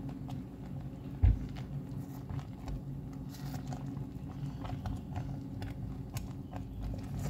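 Wooden spatula stirring thick, simmering brigadeiro in a stainless steel pot, with small sticky plops, bubbles and scrapes, over a steady low hum. A single dull thump comes about a second in.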